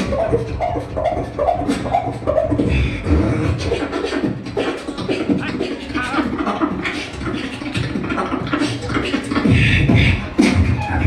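Solo beatboxing: mouth-made kick, snare and hi-hat hits in a continuous beat over a low bass, with short pitched vocal lines woven in.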